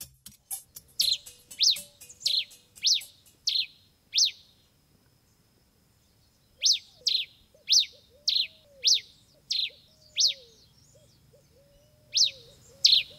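Male red pileated finch (tico-tico-rei) singing: a series of sharp, downward-slurred notes about two a second, in phrases of six or seven notes separated by pauses of a couple of seconds.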